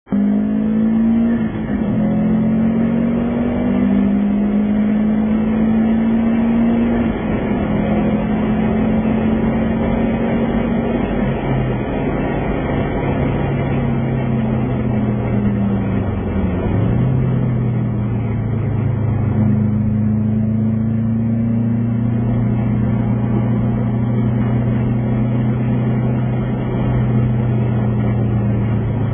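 Subaru Impreza RB5's turbocharged flat-four engine heard from inside the cabin, running hard on track. Its pitch holds for several seconds at a time, then dips and climbs again several times as it changes gear and lifts.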